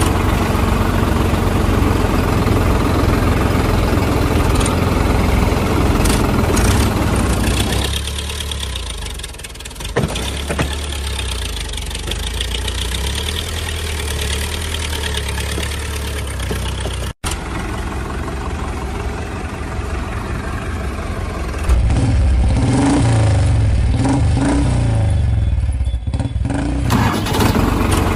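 Vehicle engine sound effect: a motor running steadily, with a brief dropout past the middle and revving up and down in the last few seconds.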